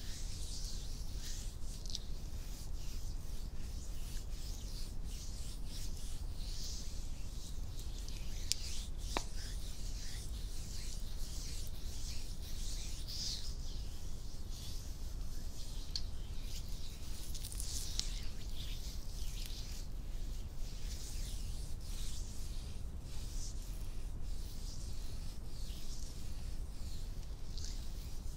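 Hands rubbing and stroking skin close to the microphone: a run of soft, irregular swishing strokes, with a couple of sharp clicks about nine seconds in.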